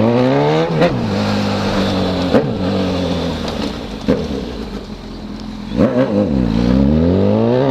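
Honda CB1000's inline-four engine, through a four-into-one exhaust, accelerating away: the pitch rises, drops sharply at a gear change about a second in, holds, falls off around four to six seconds in, then rises again near the end.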